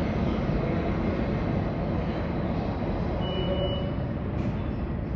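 R62A subway train running through the station with a steady, heavy rumble that slowly fades. A brief high-pitched tone sounds about three seconds in.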